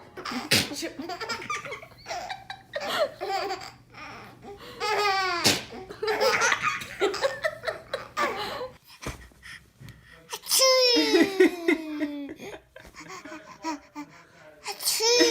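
A baby laughing in repeated bursts, with some babbling between them.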